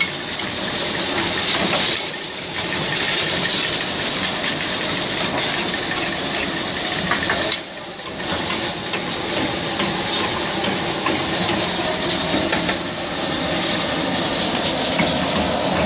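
Chicken karahi curries sizzling and bubbling hard in several steel karahi pans over high gas flames, a steady hiss. The cook's metal ladle and tongs scrape and clink against the pans now and then.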